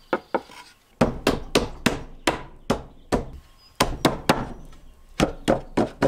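Pine sides of an unassembled beehive box being knocked together at their finger joints: a series of sharp wooden knocks, a few a second with short pauses, starting about a second in.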